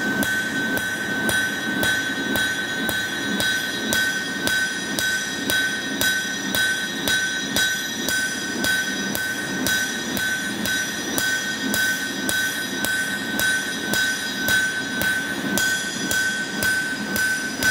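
Hand hammer striking a red-hot steel sword blade on an anvil, about two blows a second, the anvil ringing with a high steady tone that carries between strikes. The blows are forging the bevels into the blade.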